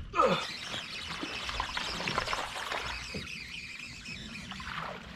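Baitcasting reel being cranked fast to bring in a hooked bass, a dense whirring hiss with fine rapid ticks, easing off after about three and a half seconds. A few short squeaks slide downward in pitch over it, the first right at the start.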